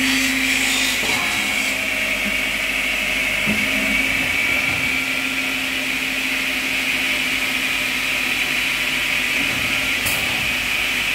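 Balestrini automatic hydraulic jointing machine running steadily: a continuous motor hum with a hissing whine over it. A short high click about ten seconds in.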